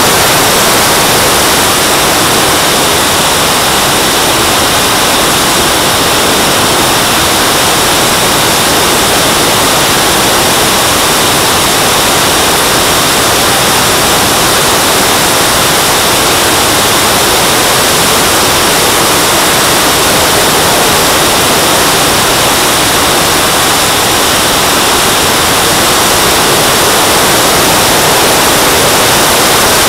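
Model jet's JetCat turbine and the rushing airflow, heard on the onboard camera in flight: a loud, steady hiss with a faint high whine that holds level throughout.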